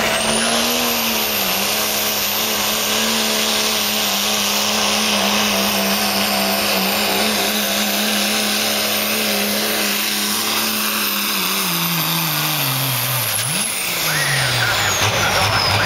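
Second-generation Dodge Ram's 5.9-litre Cummins straight-six diesel running at full throttle under heavy load while pulling a weight-transfer sled, with a high, steady turbo whistle over the engine. About twelve seconds in the revs fall away, pick up briefly once, then drop again as the turbo whistle winds down and the pull ends.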